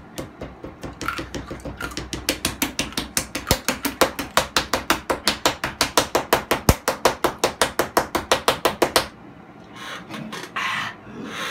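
Rapid pounding by a person, about five knocks a second, growing louder and faster, then stopping abruptly about nine seconds in. It comes as a reaction to the sourness of extreme-sour Warheads candy in the mouth.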